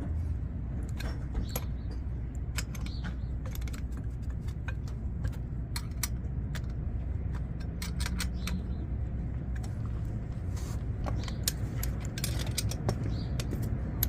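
Scattered metal clicks and clinks of nuts and a wrench being worked on the bolts of a three-piece brass ball valve, over a steady low hum.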